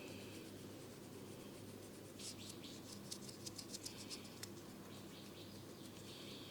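A barber's fingers working hair and scalp in an ASMR massage: a quick run of sharp crackling clicks about two seconds in, then a softer scratchy rustle, over a faint steady hum.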